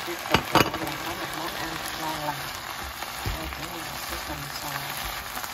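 Chicken, onions, mushrooms and bell pepper sizzling in a nonstick frying pan as they are stir-fried with a spatula. Two sharp knocks come about half a second in.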